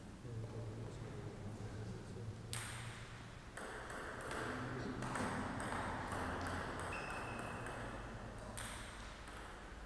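Table tennis rally: the plastic ball clicking off rackets and table in quick alternation, about two hits a second, starting about two and a half seconds in.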